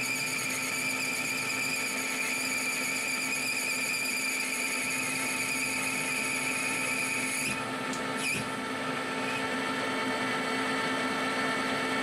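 Colchester Bantam lathe running with a steady whine while a turning tool cuts down a brass bar. About seven and a half seconds in the higher hiss drops away, and a short squeak follows.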